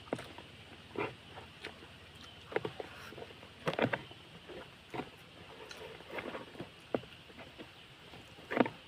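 Close-up mouth sounds of someone eating grilled barbecue: chewing and wet smacks in short, irregular bursts about once a second.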